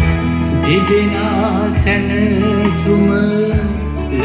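Song played from a vinyl record on a turntable through a Sansui AU-D707F Extra amplifier and Energy C6 loudspeakers: a singer with vibrato over steady bass and instrumental accompaniment.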